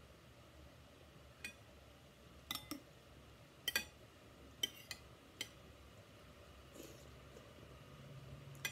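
Metal spoon and fork clinking and scraping against a plate while eating: several short, sharp clinks at irregular intervals, the loudest cluster near the middle.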